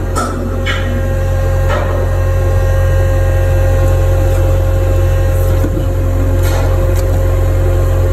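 Heavy machinery running with a steady, loud low hum and a constant mid-pitched tone, with a few light knocks in the first two seconds and again near the end.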